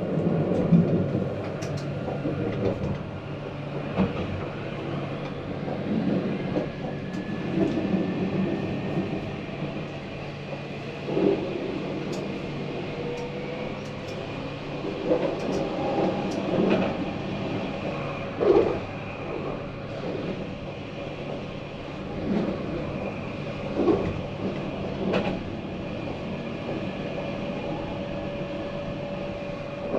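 Tram running along its line: a steady rail rumble with a faint electric whine that slowly shifts in pitch, broken by irregular knocks and clunks from the wheels on the track.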